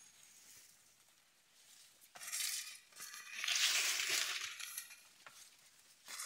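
Maize leaves and stalks rustling and brushing in bursts as tassels are pulled from the plants, with a couple of sharp clicks.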